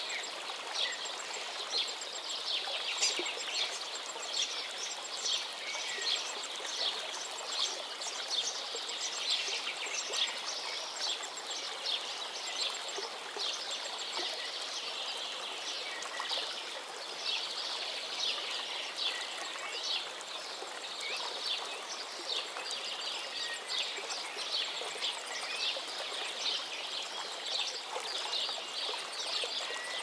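A stream running over rocks in a steady rush, with small birds chirping busily throughout and an occasional higher call.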